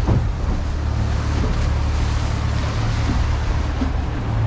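Steady low engine drone of a catamaran under way, mixed with the rush of wind and the wake water along the hull.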